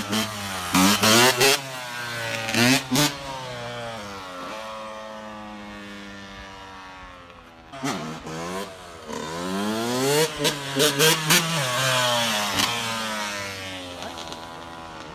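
Dirt bike engine revving hard in a series of quick climbs in the first few seconds, then its pitch sinks as it eases off. About eight seconds in it revs up again through another run of climbs, then tails away near the end.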